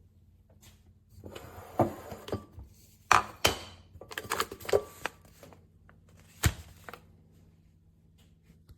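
A string of knocks, clicks and clatter from objects being handled, loudest about three seconds in and again near six and a half seconds, over a faint steady low hum.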